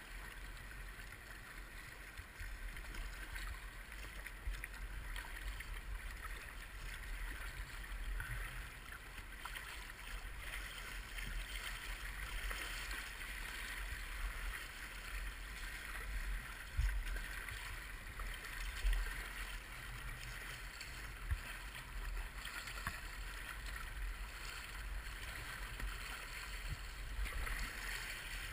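Steady rush of river water, with a few dull knocks in the second half.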